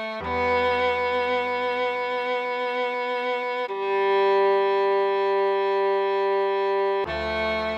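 Cello playing a slow melody of long held notes, each lasting about three and a half seconds, changing about a quarter second in, again near four seconds and again near the end. A low accompanying tone enters with the first and last of these notes.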